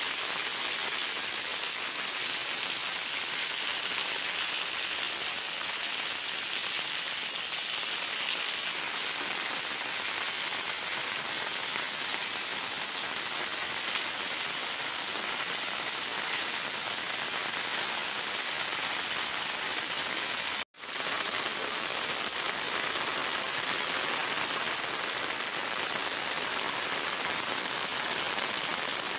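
Steady monsoon rain falling on wet concrete and muddy ground, an even hiss of drops. About two-thirds of the way through, the sound cuts out for an instant and comes straight back.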